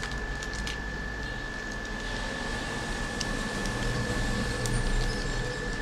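Steady electrical hum with a constant high-pitched whine over it, and a few faint clicks.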